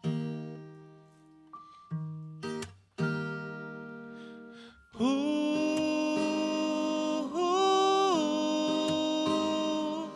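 Live band playing the slow opening of a song: plucked or struck chords that ring out and fade one after another, then about five seconds in a louder chord of sustained held notes joins, its pitch shifting briefly near the eight-second mark.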